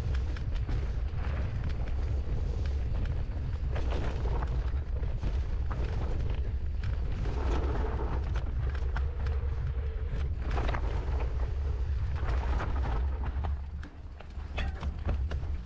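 Mountain bike rattling and clattering over rough, rocky ground on a fast descent, with heavy wind rumble on the camera microphone. It drops briefly about a second and a half before the end.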